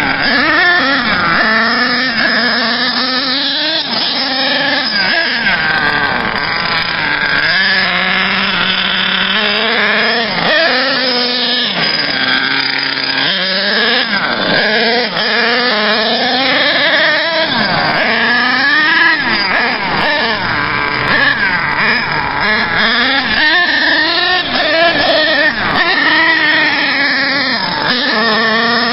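HPI Savage nitro monster truck's Axial .28 two-stroke glow engine revving up and down under throttle as the truck drives, its pitch rising and falling over and over.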